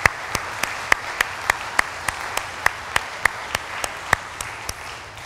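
A congregation applauding, with one person's clapping standing out close by as sharp, even claps about three a second. The applause thins out near the end.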